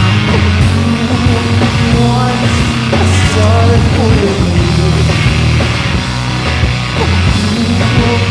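Loud, heavy rock song: a band with bass, guitar and drums, with a sung vocal line.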